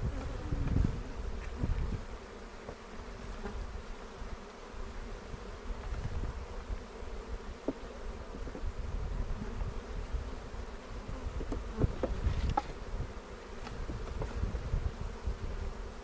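Honey bees buzzing in a steady hum around an open hive, with a few light clicks and knocks about halfway through and again near three-quarters of the way.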